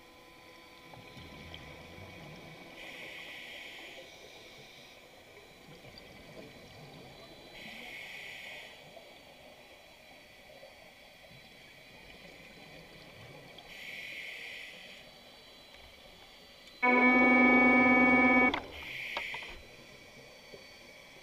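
Scuba regulator breathing underwater: bursts of exhaust bubbles about every five to six seconds. Near the end a loud steady pitched tone sounds for about a second and a half.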